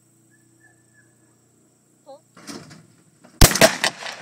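A single shotgun shot fired at a skeet target about three and a half seconds in, loud and sharp, with several echoes following it.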